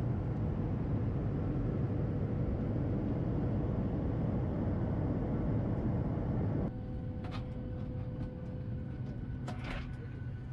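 Steady, low-heavy cabin noise of a Boeing 737 MAX in cruise flight, heard from a window seat by the wing. About two-thirds of the way through it cuts to a quieter, even cabin hum with a faint steady tone and a few light clicks.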